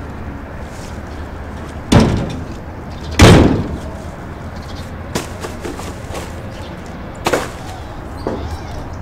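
A series of heavy slams over a steady low rumble: two loud ones about two and three seconds in, then lighter knocks.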